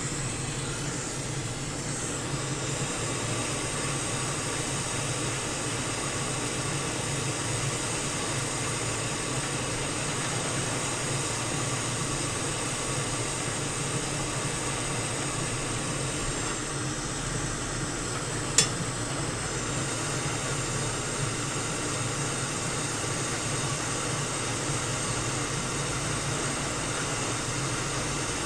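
Hot air rework station blowing a steady airflow hiss with a low hum underneath, heating a new charging port so the solder on its pads melts. A single sharp click about two-thirds of the way through.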